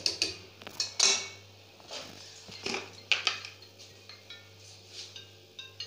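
Wire whisk clinking and scraping against a steel bowl of batter, then a few separate utensil clinks and knocks. Faint xylophone-like background music begins near the end.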